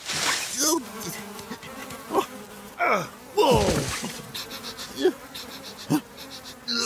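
Cartoon sound effect of flies buzzing around a compost heap, steady throughout, with several short sliding-pitch sounds over it; the loudest is a falling glide about halfway through.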